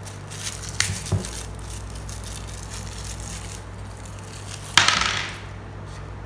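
Small clicks of a battery and plastic battery compartment being handled, then a single loud sharp clatter near the end that rings briefly, as of a small hard object hitting a hard surface.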